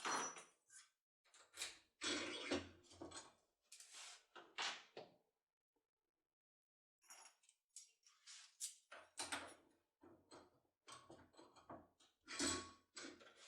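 Lock cylinder and pick tool being handled: scattered short clicks, rattles and scrapes of metal, with a pause of about two seconds near the middle.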